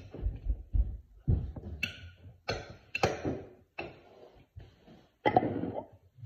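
Kitchen tableware being handled: a spoon and containers tapping and clinking on a glass bowl and the countertop, about eight separate taps, with a longer clattering rustle about five seconds in.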